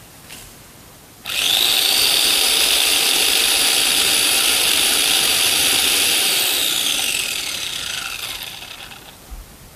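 Electric chainsaw cutting wood: the motor starts suddenly about a second in, runs loud and steady for about six seconds, then winds down with falling pitch as it coasts to a stop.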